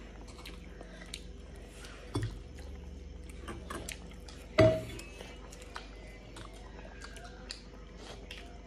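Close-up chewing of instant noodles and momos, with small mouth clicks throughout and one sharp knock about halfway through.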